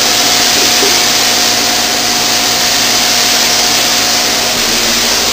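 Steady, loud hiss of a gravity-feed paint spray gun spraying, with a steady hum underneath. A higher steady tone in the mix drops out about four and a half seconds in.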